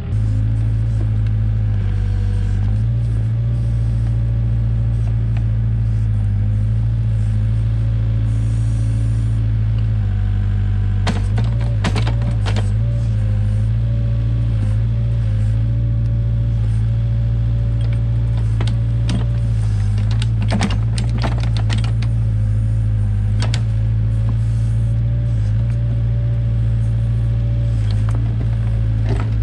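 Case 580K backhoe's diesel engine running steadily under load while the backhoe digs, with a wavering higher whine over the engine note. A few short knocks and scrapes about eleven and twenty seconds in.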